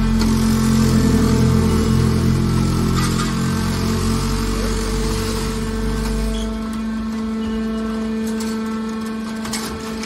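Hydraulic scrap metal baler running as its ram pushes a compressed bale out of the chamber: a steady machine hum with a deep heavy drone under load that drops away about two-thirds of the way through.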